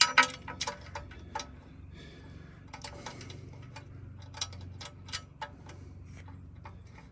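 Irregular light metallic clicks and clinks as a bolt and washer are worked into the lower slotted hole of a steel guard plate, with a wrench held on the back. A low steady hum runs underneath.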